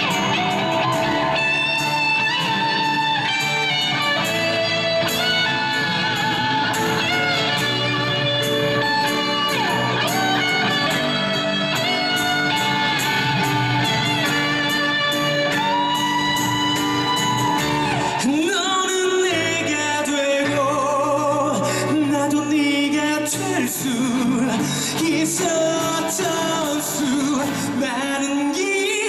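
Live rock band playing an instrumental break with electric guitar to the fore. About eighteen seconds in the bass drops away and the music thins out to lighter melodic lines.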